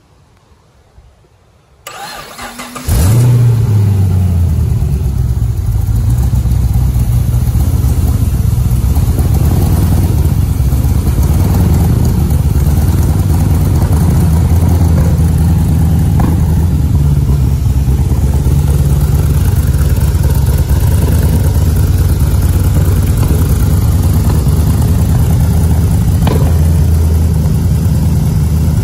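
GM LS3 6.2-litre V8 cold start: the starter cranks for about a second before the engine catches about three seconds in, flares briefly, then settles into a steady, loud idle.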